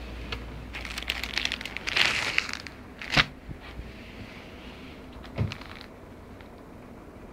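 Clear plastic garment wrapping crinkling and crackling as it is handled, with a sharp knock about three seconds in and a duller thump about two seconds later.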